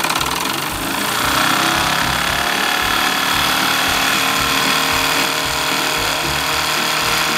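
Wilesco D20 toy steam engine running, with a steady hiss of steam and a regular low beat about twice a second, a little louder from about a second in.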